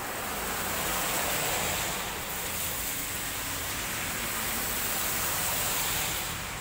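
Cars passing one after another on a wet road, the hiss of their tyres through standing water. It swells about half a second in, holds, and fades near the end.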